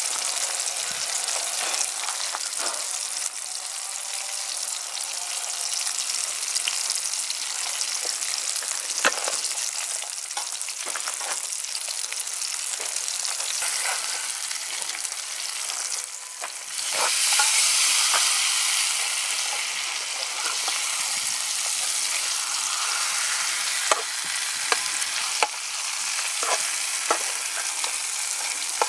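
Fish fillets sizzling in hot oil in a steel frying pan over a wood fire, a steady crackling hiss that swells louder about seventeen seconds in. Sharp clicks and scrapes of a spoon and metal spatula against the pan come through now and then, several in quick succession near the end.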